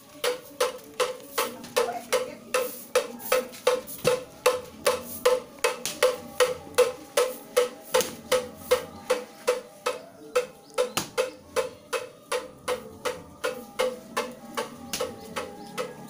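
A Balinese priest's hand bell (genta) rung in a steady, quick rhythm of about three strokes a second, each stroke leaving a ringing tone, as he chants at the offering altar.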